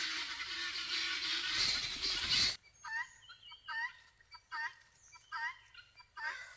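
Dry leaf litter rustling loudly for about two and a half seconds, then a sudden drop to quieter surroundings with about five short, pitched calls, roughly one every three-quarters of a second.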